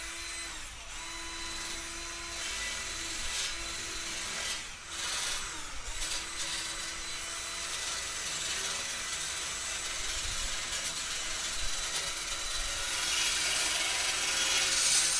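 Wire brush scraping over painted metal furniture in uneven, continuous strokes, knocking off loose, flaking old paint before repainting.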